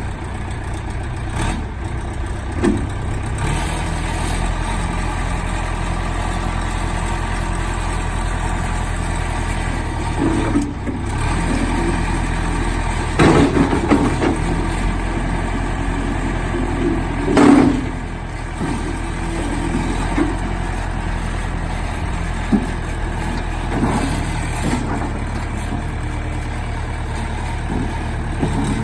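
John Deere 210C backhoe's diesel engine running steadily, with a few short, louder knocks or clanks over it, the loudest about halfway through.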